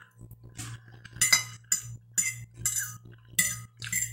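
Metal fork clinking and scraping against a glass plate in a quick series of short strokes, most of them in the second half.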